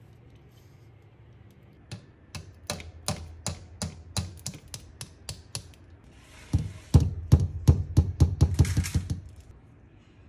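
Claw hammer tapping a small nail into the wooden fork of a slingshot made from a paintbrush handle, pinning its rubber tubing. It starts with light taps about three a second, then after a brief pause a faster, louder run of taps that stops near the end.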